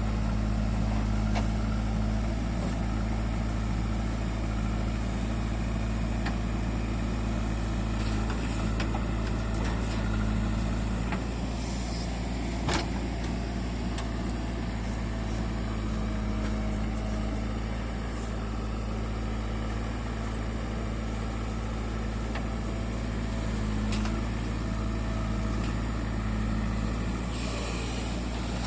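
Heavy diesel engine running steadily at a low, even hum, with a sharp click about halfway and a brief hiss near the end.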